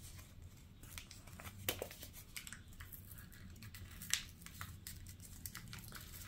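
Faint crinkling and rustling of a paper seed packet being opened and handled, with a couple of light clicks.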